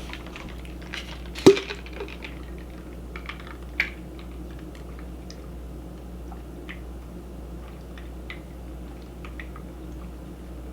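Close-miked eating sounds: small wet mouth clicks and chewing, with a sharp knock about a second and a half in and a smaller one near four seconds, over a low steady hum.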